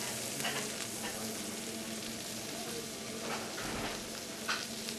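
Chopped onions sizzling steadily in a frying pan over a gas flame as chopped greens are pushed off a wooden cutting board into the pan, with a few short scrapes standing out now and then.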